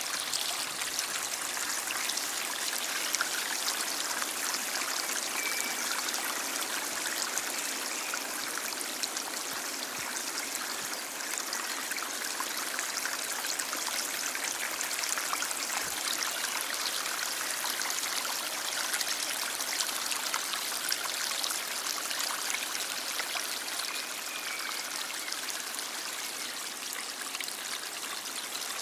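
A stream flowing: a steady rush of water with a constant fine patter of small splashes and trickles.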